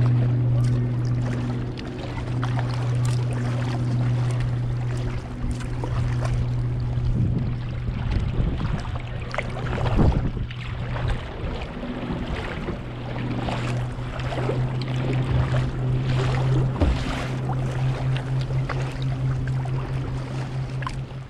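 Kayak paddles dipping and splashing in the water, with a steady low hum underneath that drops out for a couple of seconds about ten seconds in.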